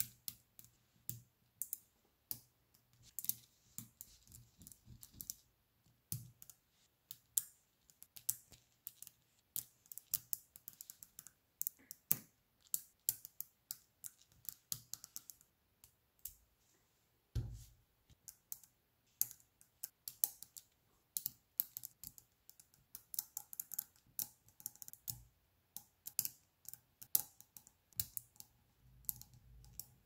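Small magnetic balls clicking as they snap onto each other by hand: many quick, sharp, irregular clicks, with one deeper knock about seventeen seconds in.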